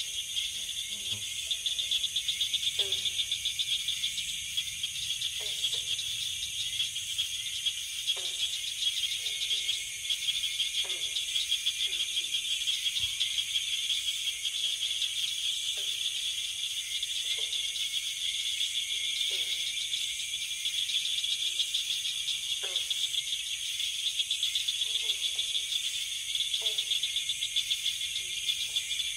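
Night-time insect chorus: a steady, fast-pulsing chirr like crickets, with short falling calls at a lower pitch every second or two.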